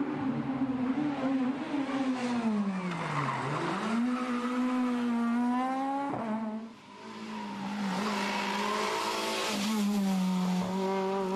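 Peugeot 206 rally car engine under hard driving on a tarmac stage. The engine note drops steeply about three seconds in as the driver lifts off and slows for a corner, then climbs again under acceleration. After a break about six and a half seconds in, it holds a steady note at full throttle.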